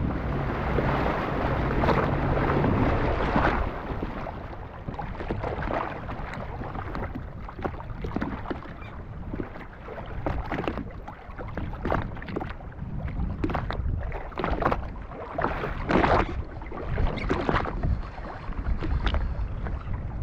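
Sea-Doo Fish Pro jet ski's engine running for the first few seconds, then dropping away. After that, irregular slaps and splashes of water against the hull.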